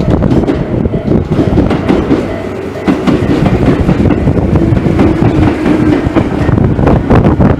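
Train passing close by at the level crossing, its wheels clattering over rail joints, with a steady hum from the train through the middle.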